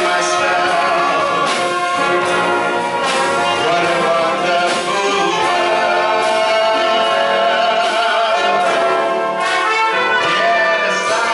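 Wind band with trumpets, trombones, tubas and saxophones playing a slow piece, with a male vocalist singing into a microphone over it.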